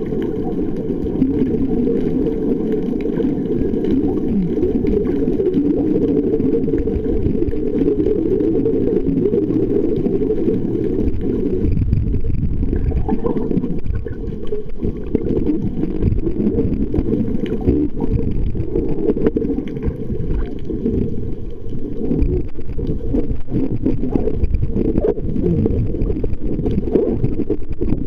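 Underwater ambience picked up by a submerged camera: a steady, muffled low rumble of moving water, with scattered small clicks and crackles.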